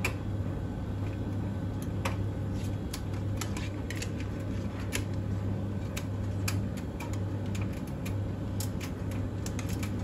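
Tumble dryer running: a steady low motor hum with the clothes tumbling in the drum and many light, irregular clicks as they fall against it.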